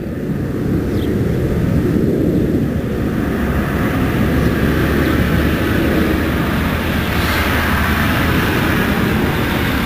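Unseen jet aircraft overhead: a loud, steady rumble that swells a little in the middle.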